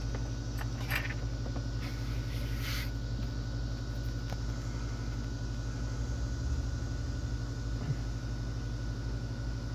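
Steady electrical hum and whir from a light aircraft's powered-up systems, with a faint high whine and a few light clicks about one and three seconds in.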